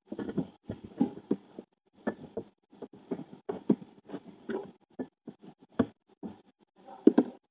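Irregular small knocks, taps and scrapes of kitchen handling as kidney beans are tipped and spooned from an opened tin can onto a plate.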